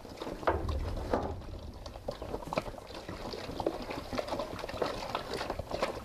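Water pouring from a plastic jerrycan into a plastic basin while a hand stirs and splashes through wet ground cattle feed, making irregular slaps and splashes.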